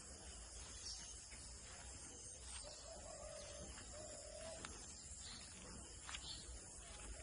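Faint outdoor ambience with two short wavering animal calls, about three and four seconds in, and a few scattered clicks.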